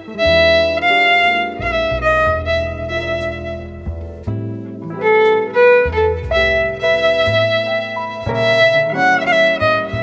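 Background instrumental music: a melody of held notes over a changing bass line.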